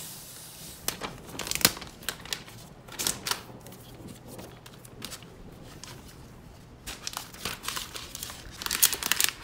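Protective wrapping sheet being peeled and pulled off the back of a new iPad, with crinkling and rustling in short bursts and light clicks from handling. It grows busier near the end.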